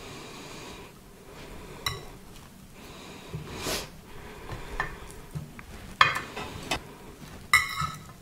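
Knife and cutlery clicking and clinking against a plate as a baked potato is cut open, with a short swishing scrape partway through. Two louder ringing clinks come about six seconds in and near the end.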